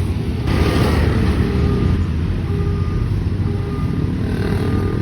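A diesel passenger train rumbles steadily as it runs into a station at low speed. Faint thin tones come and go over the rumble.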